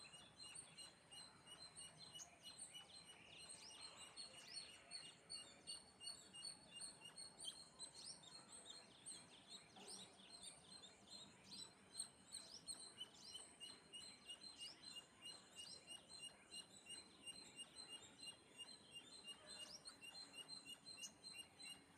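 Faint small birds chirping: a steady run of short, evenly repeated high notes with scattered brief chirps over them.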